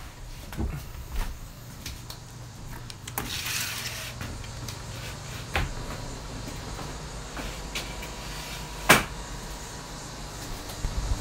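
Doors being opened and handled: a series of separate knocks and clicks, with a short scraping sound about three seconds in and the loudest sharp click about nine seconds in.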